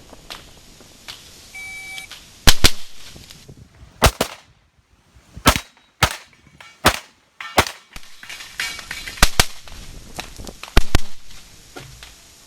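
A shot timer's short electronic start beep, then an Open-division competition pistol firing about a dozen shots, mostly in quick pairs, over roughly eight seconds of an IPSC stage.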